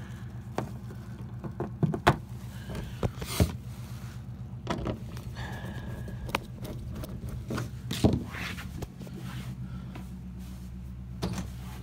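Scattered knocks, bumps and rustles of a phone being carried and handled, over a steady low hum.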